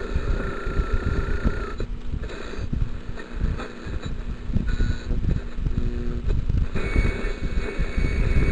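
1948 Crosley tube radio hissing and rumbling with AM static from its speaker, with steady whistling tones that come and go.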